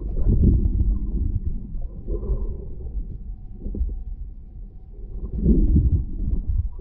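Muffled underwater rumble and sloshing of water heard through a submerged camera, as a swimmer moves their arms and body through the water just above it. The rumble surges near the start and again about five and a half seconds in.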